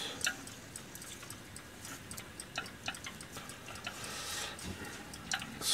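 Mackerel pieces crackling in sesame oil on a hot pan, a scattered run of small pops and spits over a faint hiss; the oil has raised the pan's heat so the fish fries noisily.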